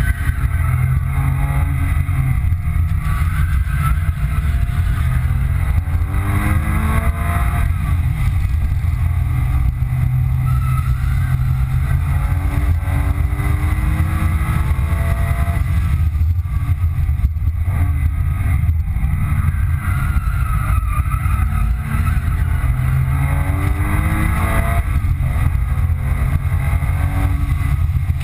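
2005 Porsche 997 Carrera 2's flat-six engine heard from inside the cabin at track speed, its pitch climbing several times under hard acceleration, each climb broken off by a gear change, over a steady low road rumble.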